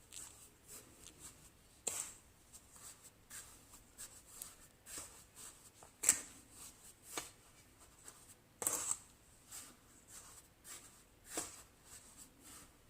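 Dry ingredients (flour, cornmeal, sugar) being stirred together in a big mixing bowl: faint, irregular scraping and rustling with a few sharper clicks of the utensil against the bowl.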